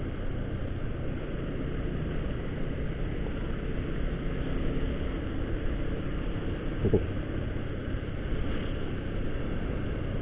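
Motorcycle engine running at a steady cruise with road and wind noise on the microphone while riding. A brief thump about seven seconds in.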